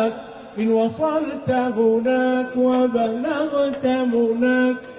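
A man singing an Arabic devotional song in praise of the Prophet, holding long notes with ornamented turns between them.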